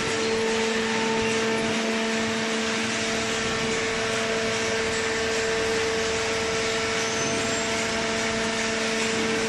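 Hydraulic baler's electric motor and pump running, a steady hum over a hiss.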